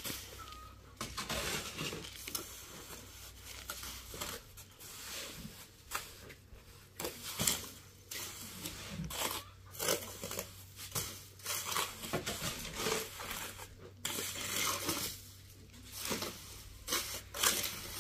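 Irregular rough scraping and crunching strokes, one after another, with no steady tone: hands-on work with a gritty or crumpling material.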